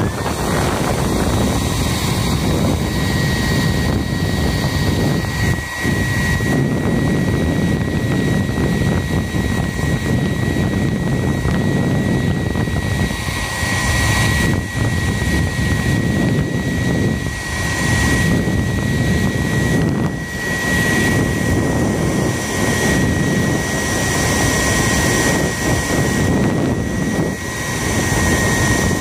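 Hairdryer running, a steady rush of blown air with a constant high motor whine, switched on at the start. It is heating the adhesive backing of velcro strips so that they stick better.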